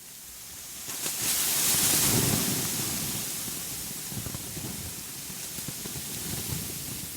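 Ambient nature recording of a steady rushing hiss with a low rumble beneath, fading in at the start and swelling about a second in before settling.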